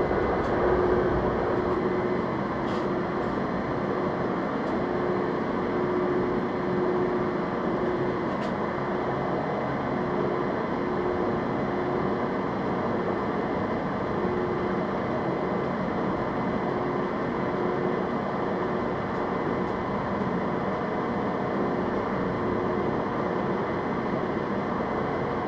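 Metalworking machine tool running steadily, a continuous drone with a hum that pulses at a regular beat.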